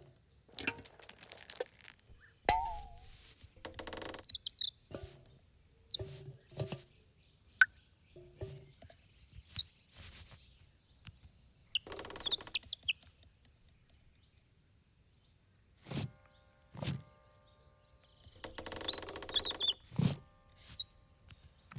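Sparse cartoon sound effects: a small bird's short chirps and tweets, with light rustles and clicks, a brief wavering squeak, and a few soft low thumps later on, separated by quiet pauses.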